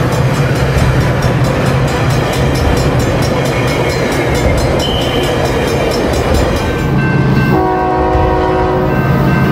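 Train running with a fast regular beat of about four strokes a second over a steady rumble. Near the end, a locomotive air horn sounds one chord for about a second and a half over the engine's drone.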